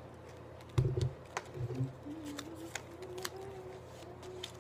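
Playing cards being handled and shuffled by hand at a table: scattered light clicks and flicks of card edges, with a couple of soft thumps about a second in.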